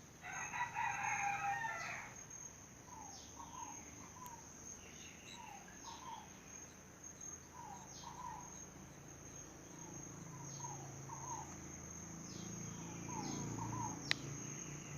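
A rooster crows once near the start over a steady, high-pitched insect drone of crickets. Short falling chirps repeat about once a second, and a sharp click comes near the end.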